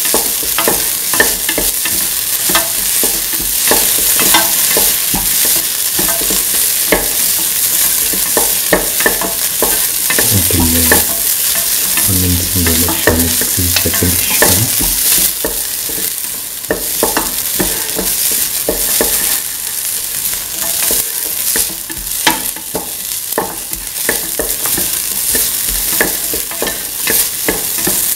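Chopped onion and shallots sizzling in hot oil in a stainless steel pan while being stirred, the utensil clicking and scraping against the pan again and again.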